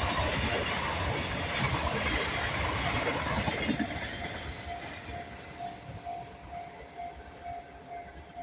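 Freight train hauled by a JR Freight EH200 'Blue Thunder' electric locomotive rumbling past over the rails, its noise fading away from about four seconds in. As it recedes, the level crossing's warning bell rings clearly in an even beat of about two dings a second.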